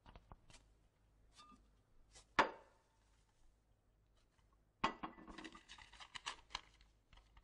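Vases and glassware handled on a table: one sharp knock with a short ring about two and a half seconds in, then a run of light clinks and clatter from about five seconds in.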